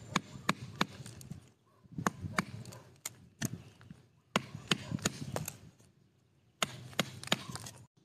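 Knife blade chopping and chipping out fibre inside a hollowed bamboo root. The sound comes in four bursts of quick, sharp taps, each about a second long, with short pauses between.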